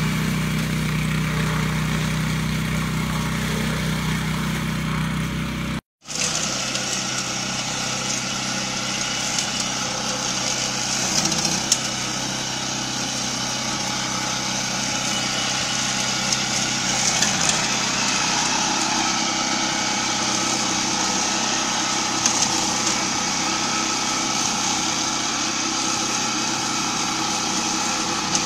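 Walk-behind brush mower's small petrol engine running steadily as it cuts through grass, with a few sharp ticks along the way. The sound cuts out for an instant about six seconds in and returns at a higher pitch.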